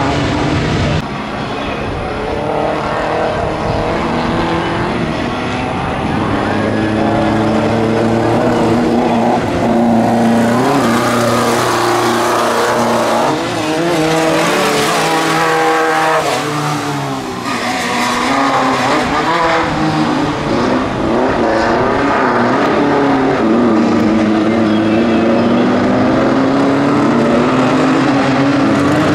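Off-road race buggies' engines running hard, their pitch rising and falling as they accelerate and lift off around the circuit, with several engines overlapping.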